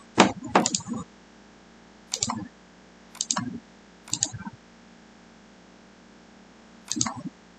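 Short, separate clicks from a computer's keyboard and mouse, about seven in all, spaced irregularly with a gap of a couple of seconds in the middle.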